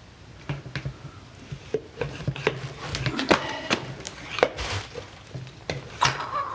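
Scattered clicks and knocks, with a short hiss about four and a half seconds in, as a hand-operated suction gun is worked to draw thick 85W-140 synthetic gear oil up from a bucket.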